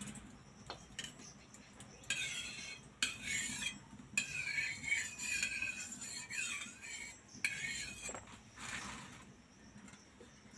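Metal spatula scraping across a hot iron griddle, spreading oil, in a run of several scraping strokes with a squeaky metallic ring.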